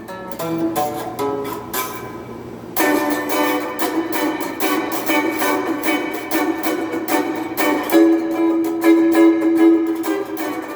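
Donner DST-80 Strat-style electric guitar played through its included small amp. Single picked notes at first, then from about three seconds in a busier run of picked notes and chords, with one note held for a couple of seconds near the end.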